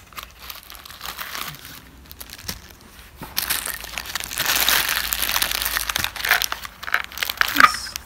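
Clear plastic zip bags from a home COVID rapid test kit crinkling as they are handled and unpacked, loudest for a few seconds in the middle.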